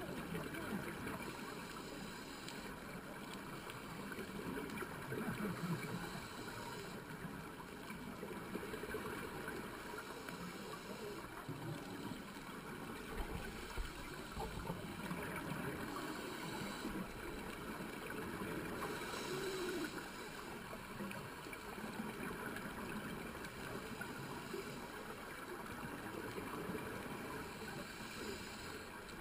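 Underwater sound of a scuba diver breathing through a regulator: a short hiss on each inhale every few seconds, with bubbling from the exhales in between.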